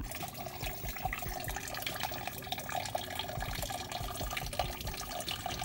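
Engine coolant draining from an opened radiator drain plug in a thin stream, splashing steadily into a plastic bucket.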